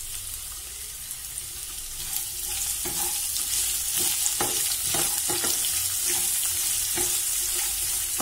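Freshly added chopped vegetables sizzling in hot oil in a nonstick kadhai while a wooden spatula stirs them, scraping and knocking against the pan in short strokes. The sizzle grows louder about two seconds in.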